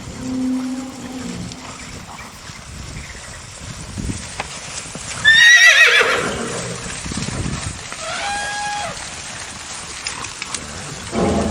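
Horse whinnying: one loud, quavering neigh about five seconds in that slides down in pitch, with fainter calls later.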